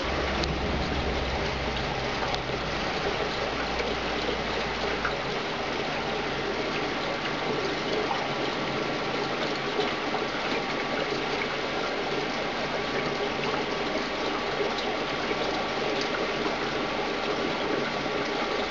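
Steady bubbling and gushing of HHO (oxyhydrogen) gas streaming up through water in a glass tank from a diffuser at the bottom. A low hum sounds underneath and stops about five seconds in.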